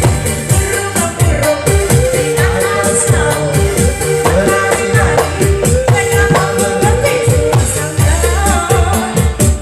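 Loud music with singing over a heavy, fast bass drum whose strokes drop in pitch, played through a large sound-horeg loudspeaker system.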